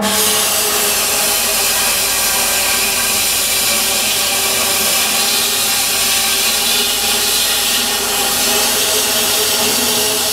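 Oxy-fuel cutting torch cutting a hole through a steel pipe wall: a loud, steady hiss from the cutting jet that comes on suddenly at the start and holds evenly.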